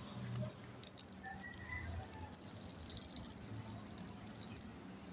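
Faint rolling and scraping of a small die-cast toy wheel loader's plastic wheels, pushed by hand over rough concrete, with a few light clicks.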